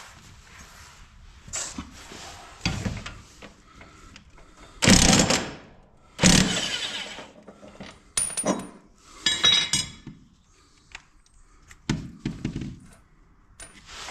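Impact wrench hammering on a 15/16-inch mower blade bolt in two runs of about a second each, near the middle, taking the blade bolts off. These are followed by sharp metallic clinks and clatter of the loose bolt and blade.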